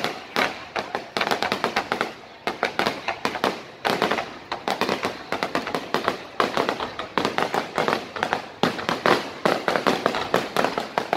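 Aerial fireworks bursting overhead in a rapid, continuous string of sharp bangs and crackles, with a brief lull about two seconds in and another past eight seconds.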